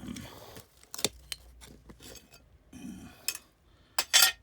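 Shards of broken glass clinking and scraping against each other as they are dug through, with a few sharp clinks; the loudest two come close together near the end.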